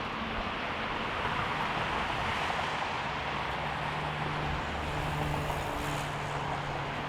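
Jet airliner engines running, heard as a steady rushing noise, with a low steady hum joining about three seconds in.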